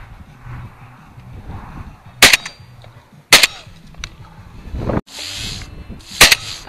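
Shotgun fired three times at pigeons: two shots about a second apart, then a third about three seconds later. A short burst of hissing noise comes shortly before the third shot.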